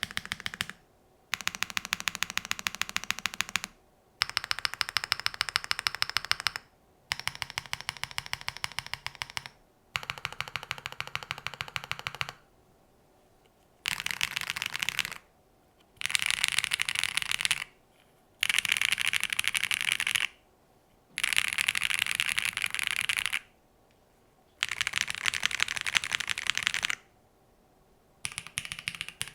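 Mechanical keyboard typed on fast in runs of a few seconds with short pauses between them, a dense stream of key clacks. The board is a top-mount WIND XLICE with a PP plate, pre-lubed WS BigLucky linear switches and GMK keycaps.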